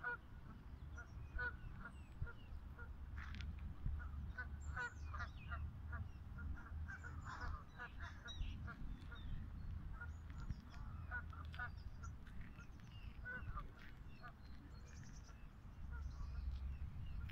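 A flock of geese honking, with many short calls overlapping in quick succession, over a low steady rumble.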